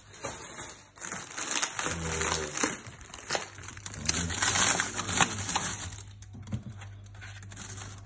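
Packaging, likely plastic, crinkling and rustling in handling with a few small knocks as tomatoes are taken out, fading after about six seconds to leave a steady low hum.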